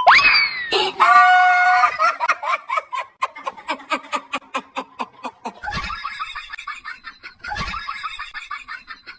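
Comic chicken sound effect: a quick sliding whistle-like glide, then a held squawk and rapid clucking, about five or six clucks a second.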